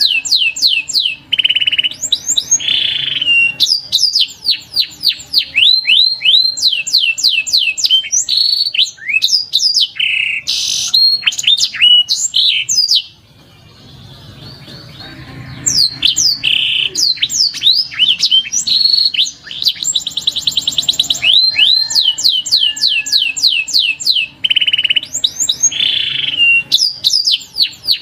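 Canary song: long runs of quick, repeated high sweeping notes, fast trills and buzzy rolls, breaking off briefly a little after halfway before starting up again.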